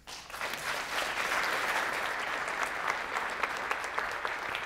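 Audience applauding, a dense patter of many hands clapping that swells up within the first half-second and then holds steady.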